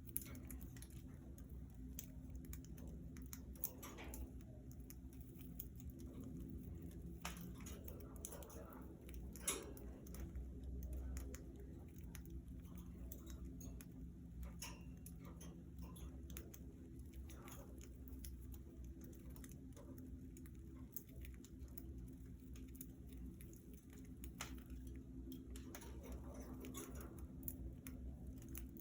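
Budgerigars moving about in a cage: scattered faint clicks and scratches of beaks and feet on bars, perches and seed, over a steady low hum.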